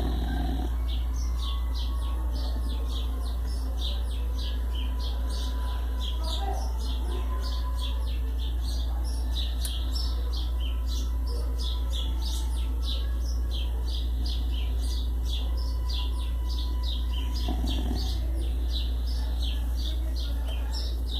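Birds chirping rapidly and continuously, several short high chirps a second, over a steady low hum.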